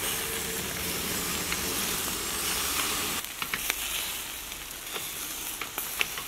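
Meat rolls on skewers sizzling over hot charcoal, with fat and freshly brushed sauce crackling on the coals. Sharp pops come in the second half, the loudest one near the end.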